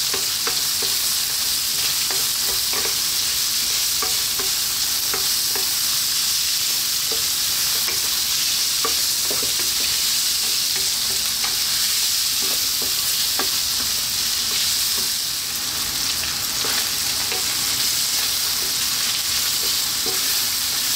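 Diced bacon, celery and onion sizzling steadily in sunflower oil in a non-stick wok on high heat, with a wooden spoon stirring through them and scraping and tapping against the pan.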